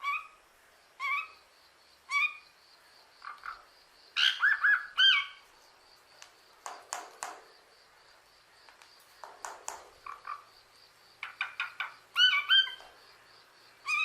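Parrot giving short chirping calls, about one a second at first, then a quicker run of calls mixed with rougher, scratchy ones.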